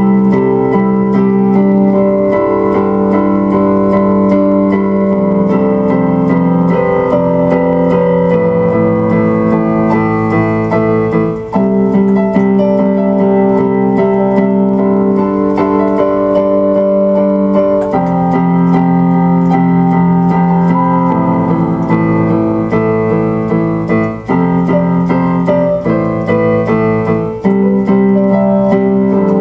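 Background music on electric piano or keyboard: sustained chords that change every few seconds.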